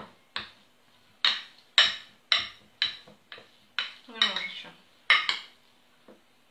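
A metal spoon clinking and scraping against a glass dish while working a thick chocolate paste, about two sharp clinks a second.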